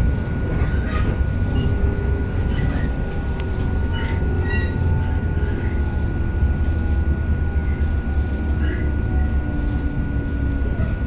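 Electric passenger train running, heard from inside the carriage: a steady low rumble of wheels on the track with faint whines that slowly fall in pitch, and a brief clatter about four seconds in.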